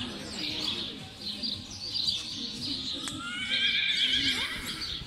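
A horse whinnying about three seconds in: one wavering call that rises in pitch and holds for over a second.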